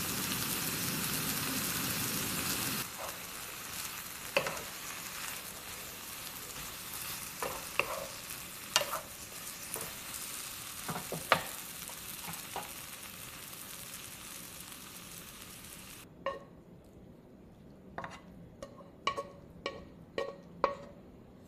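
Lettuce and cherry tomatoes sizzling in a frying pan with mayonnaise as they are stir-fried with a wooden spatula, the sizzle loudest in the first three seconds, with scattered knocks of the spatula against the pan. About 16 seconds in the sizzling stops and a run of short ringing clinks follows as the food is scraped from the pan onto a ceramic plate.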